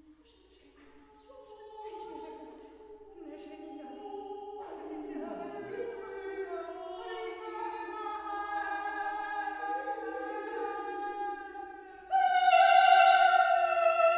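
Three women's voices singing an improvised a cappella piece. Held notes enter one after another and layer into close chords, growing louder, and a loud high held note comes in about twelve seconds in.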